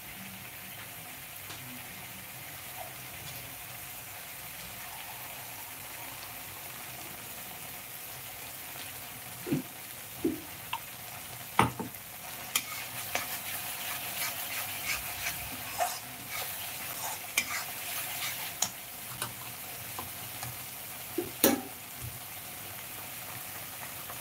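Ground masala paste with ginger-garlic paste frying in a metal kadai: a steady sizzle that turns into busier crackling and spattering about halfway through. A few sharp clinks of a metal slotted spoon against the pan come around the middle and again near the end.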